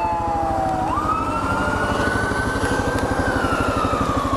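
Fire engine's siren wailing as the truck drives away. The tone jumps up about a second in, holds, then slides down again. Under it, the 2022 Kawasaki KLR650's single-cylinder engine idles with an even pulse.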